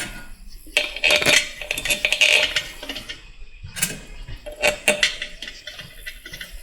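Loose steel bolts clinking and rattling against each other and against metal parts as they are picked out and handled, a series of irregular sharp metallic clinks, some ringing briefly.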